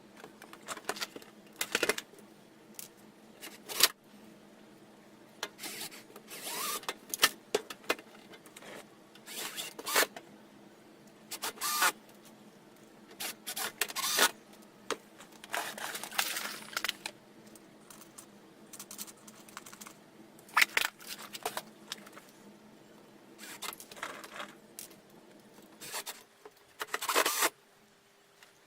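Irregular clicks, knocks and scrapes of hands working on a Pioneer A223 amplifier's metal chassis, parts and screws during reassembly.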